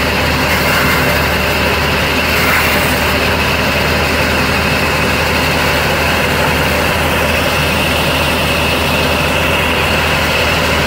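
Belarus tractor diesel engine running at a steady speed, driving a sawmill band saw.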